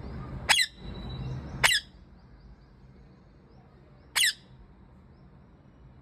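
Rose-ringed parakeet giving three short, shrill screeches: two about a second apart near the start and a third about four seconds in.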